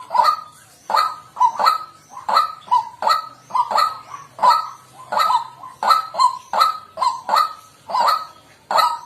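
White-breasted waterhen calling: a loud, unbroken run of harsh "kwak" notes, about two to three a second.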